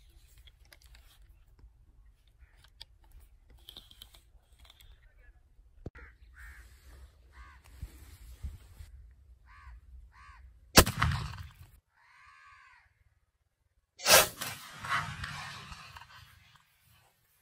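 Two blasts from a single-barrel 12-gauge shotgun, about three seconds apart, each ringing out for a second or more after the bang. Crows caw several times in the quieter stretch before and between the shots.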